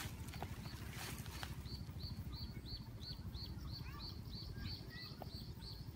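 A small bird repeating a short, high, downward chirp about three times a second, starting about a second and a half in, over a steady low rumble.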